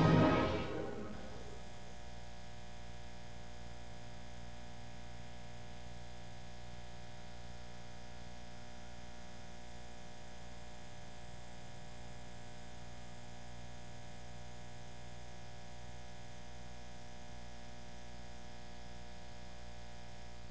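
The last of the ident's orchestral music dies away in the first second, then a steady electrical mains hum with faint tape hiss runs on unchanged from the VHS tape playback.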